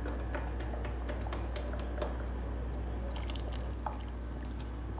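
A carton of fresh cream is shaken, the cream sloshing inside, then tipped and poured into a pot of cooked chicken. Scattered light ticks sound over a steady low hum.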